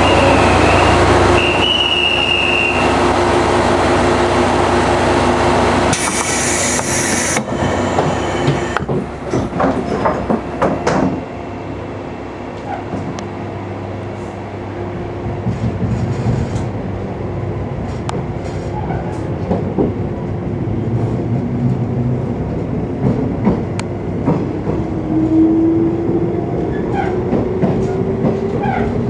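Running noise inside a JR 485-series electric limited-express train: steady rumble and hum with clicks from the wheels over rail joints. There is a short hiss about six seconds in, and near the end a motor whine rises in pitch as the train picks up speed.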